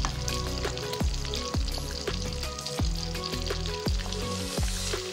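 Whole fish frying in hot oil in a wok, a steady sizzle of bubbling oil. Background music with a thudding beat plays over it.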